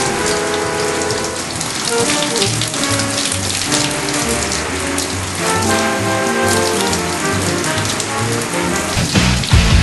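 Shower running: a steady spray of water, over background music with a melody of held notes.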